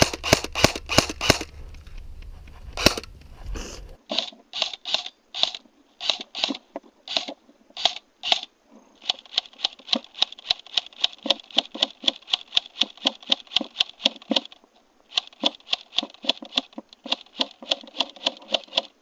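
Airsoft guns firing: strings of sharp plastic-pellet shots, then long bursts of rapid automatic fire at about eight shots a second with a short break in the middle.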